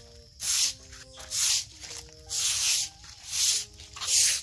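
Background music: a simple melody of held notes with a loud swishing hiss about once a second.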